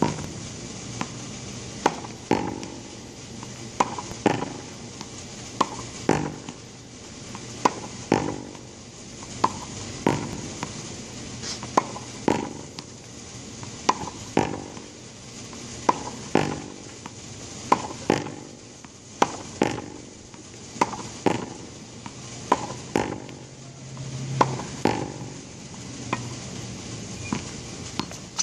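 Tennis ball being hit against a practice wall in a steady rally: sharp pops of the racket strike, the ball smacking the wall and bouncing on the concrete court, a cluster of knocks about every two seconds.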